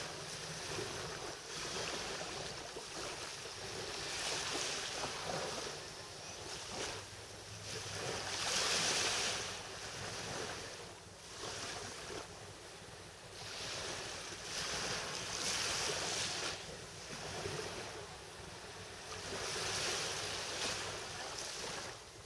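Small waves washing gently onto a sandy beach from a calm sea, the wash swelling and fading every few seconds, with a faint steady low hum underneath.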